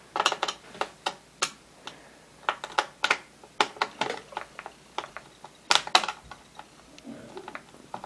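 Screwdriver clicking and scraping against a tight screw in the plastic underside of a ThinkPad T61 laptop, in irregular sharp ticks with two louder clicks close together about six seconds in; the screw will not turn.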